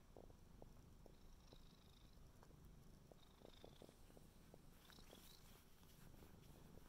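Tabby cat purring faintly and steadily while its head is being scratched.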